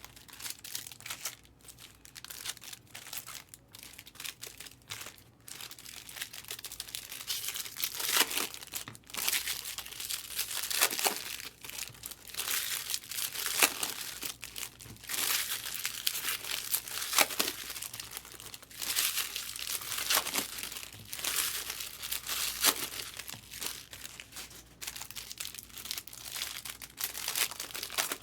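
Foil trading-card pack wrappers crinkling and tearing as packs of baseball cards are ripped open, in irregular crackly bursts.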